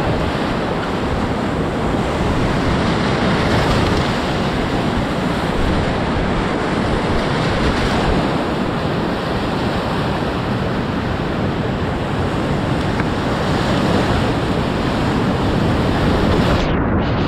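Whitewater rapids rushing loudly and steadily all around a kayak running through them, with water churning and breaking over the bow.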